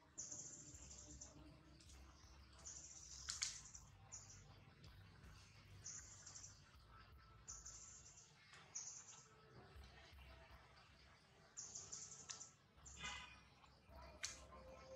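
Quiet outdoor ambience with faint, short, high-pitched chirps repeating every second or two, and a few soft clicks.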